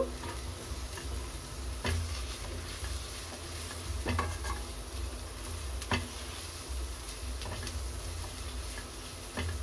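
Sliced capsicum, carrot and onion sizzling in oil in a kadai while being stir-fried with a silicone spatula, with a few sharp knocks of the spatula against the pan.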